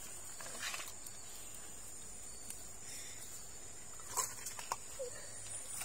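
Steady high-pitched chirring of night insects such as crickets, with a few faint clicks and knocks about four seconds in.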